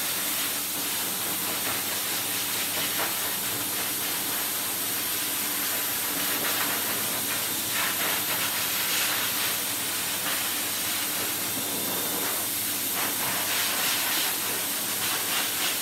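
Pet grooming dryer blowing air through its hose and nozzle: a steady rushing hiss with a faint high whine.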